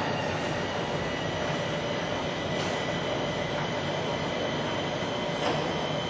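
Fire engine's powered ladder rack motor running steadily as the rack lowers its ladders down the side of the truck, a constant mechanical whine over a rumbling hum.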